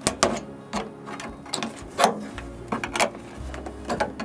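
Aviation snips cutting through an aluminium downspout: a run of short, sharp metal snips as the blades close, about a dozen at an uneven pace of two or three a second.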